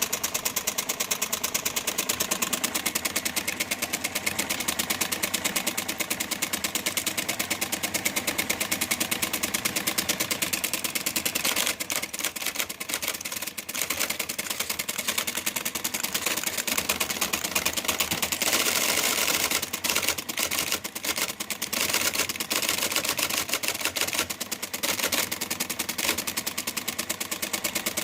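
IBM typewriter typing fast: a dense, rapid clatter of keystrokes, many per second, with a few brief breaks in the rhythm.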